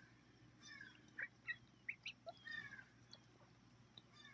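Young mallard ducklings peeping: many short, high, falling whistled calls from several birds, coming in quick irregular succession.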